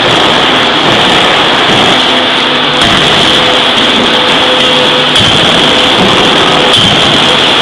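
Loud, steady machinery noise in a forging shop, with a strong hiss and a low hum, broken by three sharp metallic knocks, about 3, 5 and 7 seconds in.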